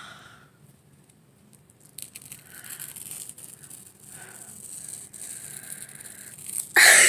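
Black peel-off face mask being slowly peeled off the skin of the nose, a faint crackling, tearing sound. Near the end comes a short, loud pained cry.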